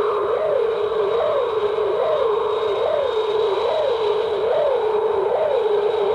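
Hedorah's Flying Stage sound effect: a continuous electronic warble that swings up and down in pitch about every 0.8 seconds, over a steady high whine.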